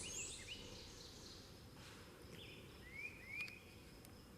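Faint bird chirps: a few short rising notes near the start and again about two and three seconds in, over a low steady hiss of ambient noise.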